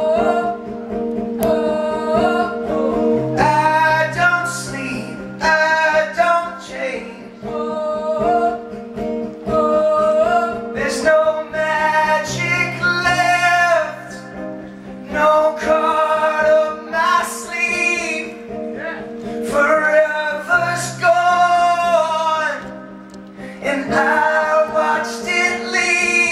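A male singer sings in sustained phrases over his own acoustic guitar chords in a live solo acoustic performance.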